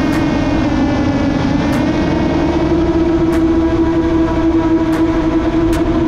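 FPV racing drone's electric motors and propellers whining at a steady high pitch, edging slightly higher partway through, over a rough rumbling wash.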